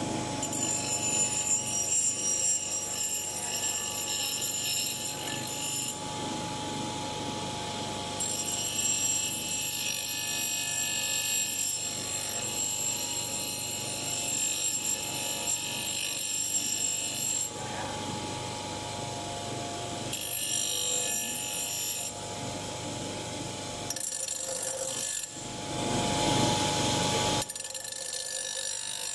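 Bench grinder running with an iron hammer head pressed to its abrasive wheel: a steady motor whine under a rasping grind that swells and eases every few seconds as the metal is pushed on and eased off, loudest briefly near the end.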